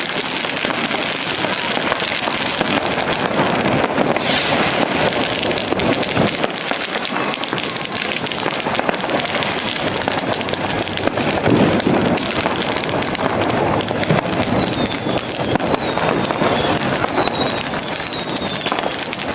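Street fireworks going off all around: a constant crackle of firecrackers and fountains with many sharp pops, and several whistles that fall in pitch.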